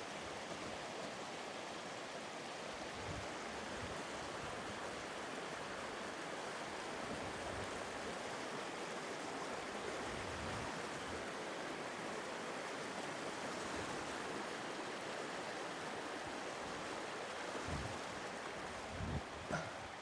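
Shallow mountain stream rushing over rocks, a steady even rush of water. A few soft low thumps come near the end.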